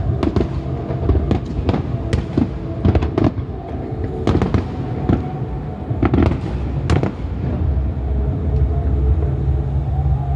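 Fireworks bursting in a rapid run of sharp bangs and crackles, which thins out over the last couple of seconds, over a steady low rumble.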